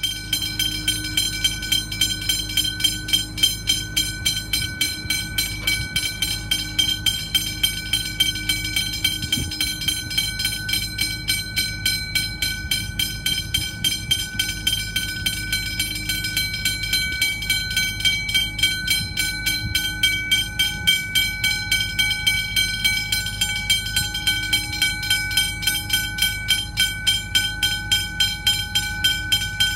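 Railway level crossing warning bell ringing with a fast, even beat, over the low rumble of an approaching train.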